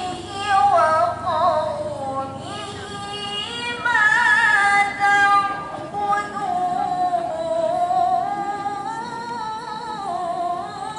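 A young woman reciting the Qur'an in melodic tilawah style into a microphone. She draws out long, wavering notes with ornamented turns, and the second half is one long phrase that slowly dips and rises.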